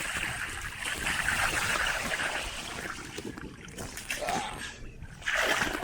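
Bicycle wheels pushing through deep flood water: steady splashing and churning, strongest for the first three seconds and then weaker.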